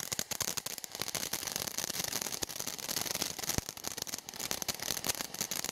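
Firework fountain spraying sparks: a steady hiss with dense, rapid, irregular crackling.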